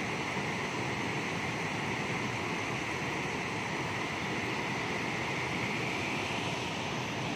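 Muddy river water pouring over a weir: a steady, unbroken rush of water.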